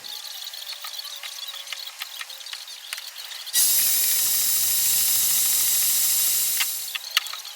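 A steady, loud hiss of escaping air or spray that starts abruptly about halfway through, lasts about three seconds and then fades out. Light clicks and taps come before and after it.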